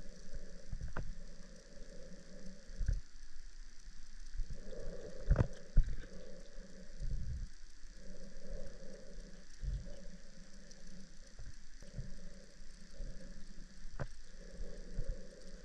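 FIFISH underwater drone's thrusters whirring in on-off bursts of about a second as it manoeuvres underwater, with scattered clicks and knocks.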